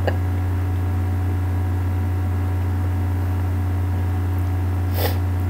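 Steady low hum with fainter steady tones above it, and a single brief click about five seconds in.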